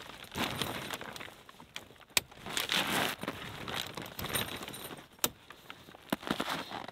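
Hot tent's fabric rustling and swishing as it is handled and pulled onto its pole frame, with a few sharp clicks, the loudest about two seconds in and again about five seconds in.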